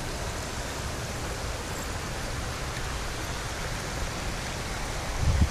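Steady rushing of running creek water. Near the end, low rumbling thumps start.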